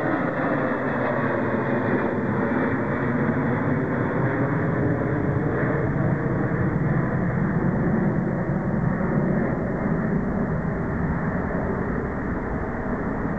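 Jet airliner engine noise, a steady rumble with faint pitch lines that slowly fall over the first couple of seconds.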